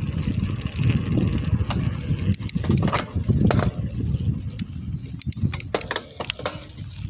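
Mountain bike rolling on a concrete trail: a steady low rumble of wind on the handlebar-mounted microphone and the knobby tyres on the pavement. Fast, even freewheel ticking runs for the first second and a half, then scattered sharp clicks and rattles from the bike.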